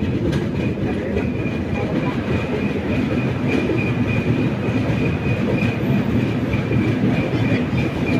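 Indian Railways express train running at speed, a steady rumble of coach wheels on the rails heard from aboard, with a thin, steady high whine over it.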